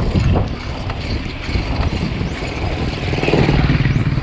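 A motor vehicle's engine running close by over a steady low rumble of road noise, its hum growing louder about three seconds in.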